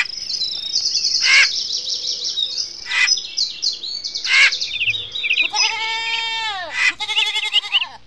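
Many small birds chirping and twittering in high, rapid trills, with a goat bleating in a long wavering call over the last couple of seconds.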